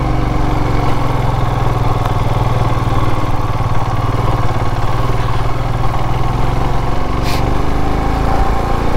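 Royal Enfield Classic 350's single-cylinder engine running steadily at a low, even speed while riding, with one short click about seven seconds in.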